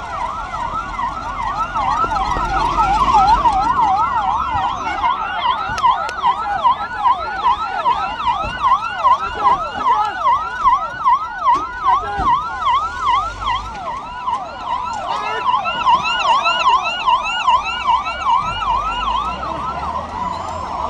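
Several electronic emergency-vehicle sirens yelping at once, each sweeping quickly up and down about three times a second, over a low rumble.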